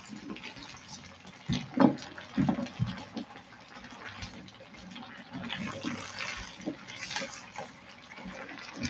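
Sliced chayote being stirred and turned with a spatula in a wide pan holding a little water: wet rustling and scraping with a few scattered knocks against the pan, over a steady simmering hiss.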